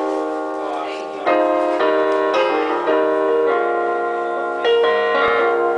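Electronic keyboard on a piano sound playing sustained chords, a new chord struck about every half second after the first second.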